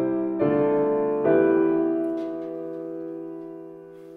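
Background music: piano chords struck one after another, the last left to ring and slowly fade.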